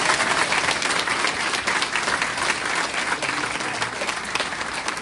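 A group of people applauding: dense, steady clapping that slowly thins and quiets toward the end.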